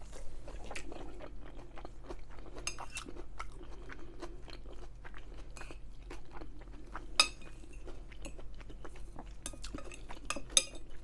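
Close-miked chewing of food, full of small wet clicks and crackles. A few sharp, ringing clinks of cutlery on a plate come about three seconds in, about seven seconds in and near the end, the loudest at seven seconds.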